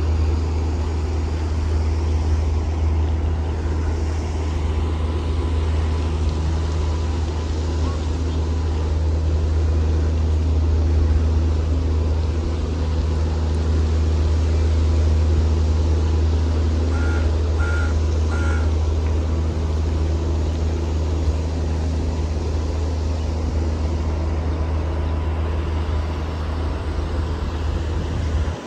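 Steady low outdoor rumble with no speech, and three quick beeps about 17 seconds in.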